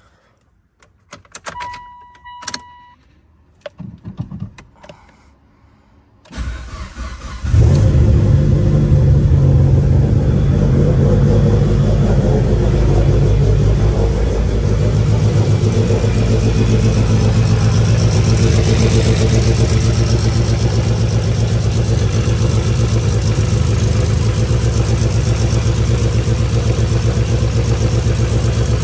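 Mitsubishi Lancer Evolution X turbocharged four-cylinder started for the first time after a new exhaust manifold and smaller-housing turbo were fitted. A few clicks and a short electronic beep come first, then the starter cranks about six seconds in. The engine catches a moment later and settles into a loud, steady idle.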